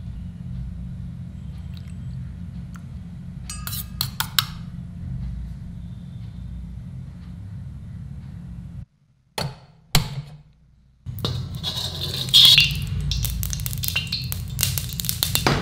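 A steel spoon clinking a few times against a small steel bowl as sauces are stirred, over a steady low hum. After a short break, oil starts to crackle in a wok, with a single knock.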